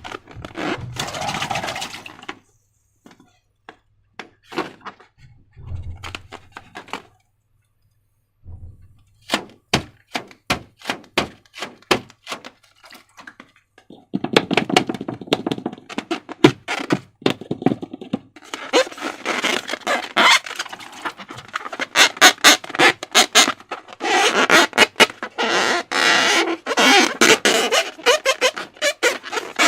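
Slime being squished and worked by hand, making sharp clicking pops, spaced out at first and dense and continuous from about halfway through.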